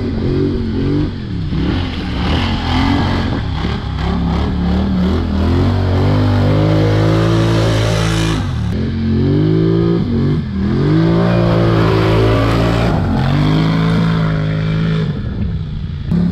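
Polaris Scrambler XP 1000 ATV's twin-cylinder engine revving hard as it is ridden in mud. The pitch climbs, then drops off sharply a few times as the throttle is opened and released.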